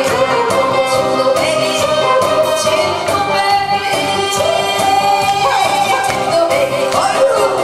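A woman singing an upbeat song into a microphone over a backing track with a steady dance beat, played through the hall's PA.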